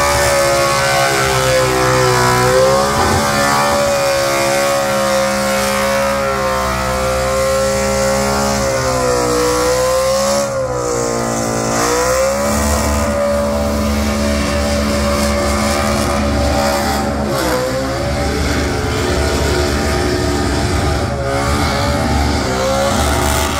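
Supercharged burnout car's engine held at high revs while the rear tyres spin, with a noisy haze of tyre scrub. The revs dip briefly and climb back a few times.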